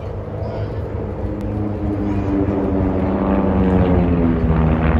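Engines and propellers of six home-built propeller aircraft flying past together in formation. Their drone grows steadily louder and its pitch sinks slightly in the second half as the formation passes.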